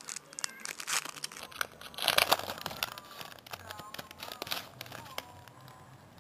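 Foil wrappers of 2007 Upper Deck Masterpieces card packs crinkling as they are handled, with a louder burst of crackling about two seconds in, then quieter rustling.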